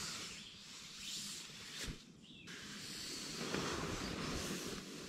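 Sleeping bag fabric rustling as a person shifts around inside it, in a few swells with a short pause about two seconds in.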